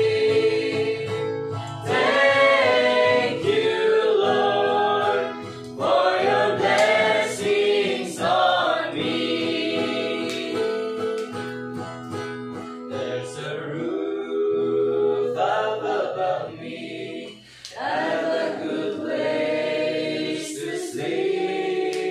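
A mixed group of men's, women's and children's voices singing a gospel hymn together to an acoustic guitar, in phrases broken by short pauses for breath.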